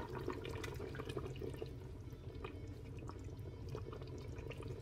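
Faint sloshing and dripping of thick sauce in a stainless steel pot as a ladle stirs and lifts it, with scattered light clicks. A low steady hum runs underneath.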